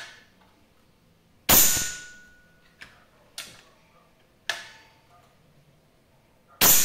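Two shots from a Kral Super Jumbo air rifle fitted with a homemade carbon-fibre suppressor, about five seconds apart. Each is a sharp crack followed by a thin ringing tone lasting about a second, with a few lighter clicks between the shots.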